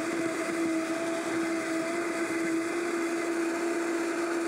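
Vitamix blender running steadily at high speed, blending almond milk and frozen mango chunks into a smooth mango lassi. The motor holds one even pitch throughout.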